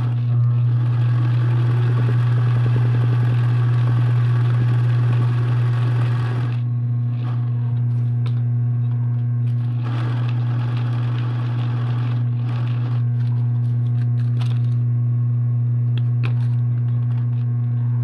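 Sewing machine running over a steady low electrical hum, with its busier stitching noise for the first six seconds or so and again briefly around ten seconds in.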